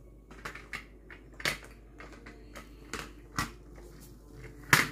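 A series of light clicks and knocks, about one every half second to second, with one sharper knock near the end: handling noise of things on a countertop.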